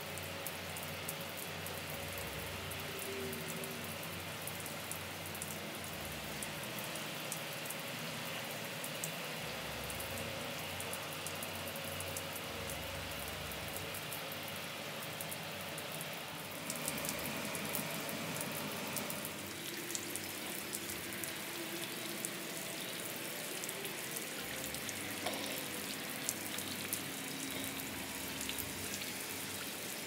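Steady rain falling, an even hiss full of small drop ticks, briefly heavier about seventeen seconds in.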